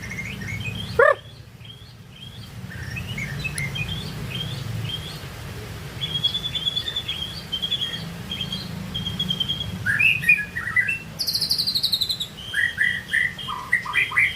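White-rumped shama (murai batu) singing a varied song of clear whistled phrases, with a loud rising note about a second in and rapid repeated notes near the end.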